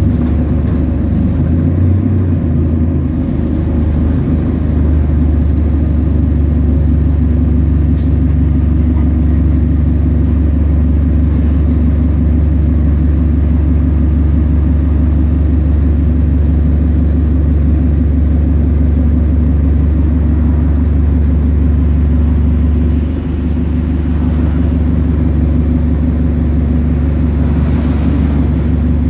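A bus running steadily on the road, with a continuous low engine drone and road noise.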